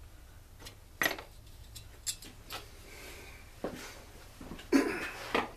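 Small metal chainsaw parts and hand tools handled on a workbench: scattered clinks and knocks, with a louder clatter near the end.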